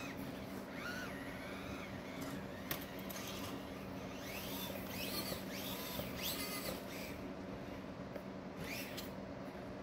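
Small electric motor and gearing of an Axial SCX24 RC crawler whining up and down in short throttle bursts, about six times, each whine rising then falling in pitch.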